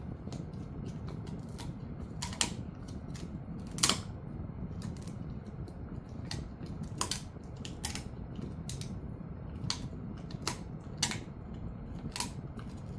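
A Jindo-mix dog gnawing a rib chew, its teeth cracking and crunching on it in irregular sharp clicks, the loudest about four seconds in, over a steady low hum.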